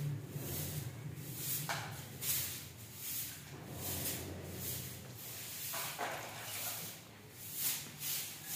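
Short soft-grass hand broom sweeping a stone floor in quick repeated strokes, about one and a half a second.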